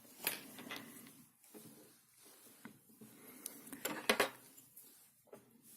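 Small metal tools and lock parts clicking and clinking on a hard surface, as scattered light taps with a louder cluster of clicks about four seconds in.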